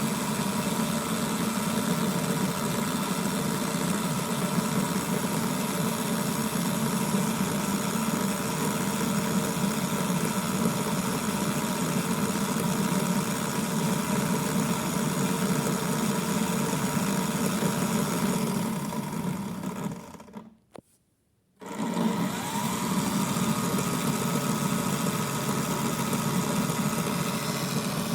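Small electric motor of a toy AEG ÖKO Lavamat washing machine running a dry cycle with no water, a steady hum with a high whine. About 19 seconds in it winds down and stops for a moment, then starts again, its whine rising in pitch as it spins back up.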